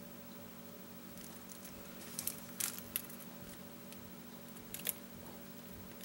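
Crinkling of a foil tea packet being handled and tucked in among paper tea bags: a few short crackly rustles about two to three seconds in and again near five seconds, over a faint steady hum.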